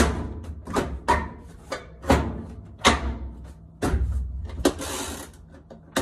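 Plastic control console of a Kenmore top-load washer being pushed and knocked back down into its clips: a string of sharp clicks and knocks, about one a second, with a brief hiss near the end.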